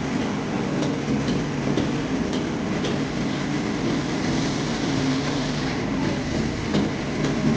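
Steady roar of a commercial kitchen's wok burners and extractor fans, with scattered light metallic clinks.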